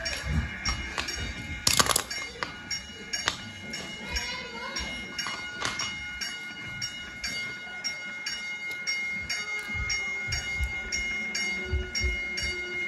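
Toy railroad crossing signal's bell ringing in an even, steady rhythm of about two and a half dings a second. A sharp knock about two seconds in and a few soft thumps come from the toys being handled on the floor.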